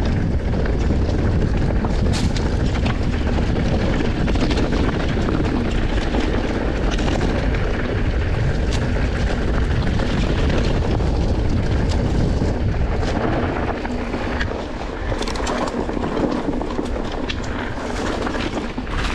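Wind buffeting the microphone and mountain bike tyres running over a rough, rocky trail at speed, with scattered sharp knocks and rattles from the bike.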